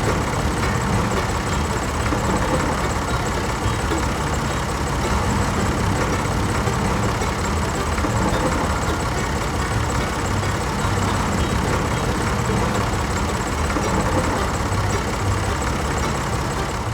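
A vehicle engine running steadily, with a low rumble.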